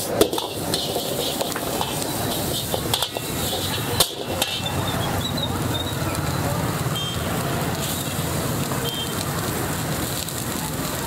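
Open gas wok burner running under a black wok as shredded vegetables sizzle, with a metal ladle scraping and knocking against the wok; the sharpest knocks come just after the start and about four seconds in.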